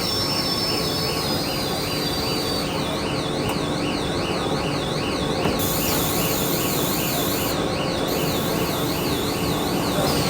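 Stretch film production line running, a steady machinery drone with a constant hum. Over it a high warbling tone rises and falls about twice a second, and a second high tone slides slowly down through the first couple of seconds.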